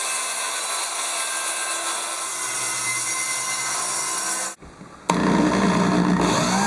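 Corded circular saw cutting steadily through a sheet of OSB sheathing, stopping abruptly about four and a half seconds in. About half a second later a power drill starts up loudly, held against the OSB ceiling panels.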